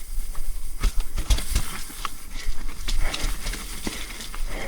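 Mountain bike riding down a wet, rocky trail: a steady hiss of tyres with frequent sharp knocks and rattles as the bike goes over rocks and roots.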